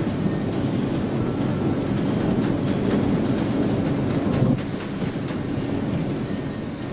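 Steady low machinery noise of a blacksmiths' shop in a locomotive works, with a run of short knocks, as of a steel rod being handled on the anvil, from about two to four and a half seconds in.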